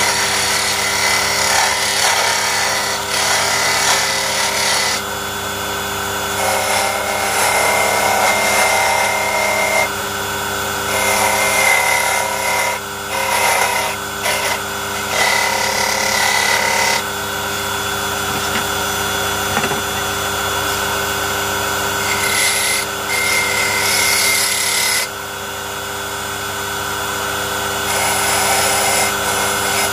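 A small electric hand tool running steadily, broken by about five stretches of a few seconds each where it grinds into wood.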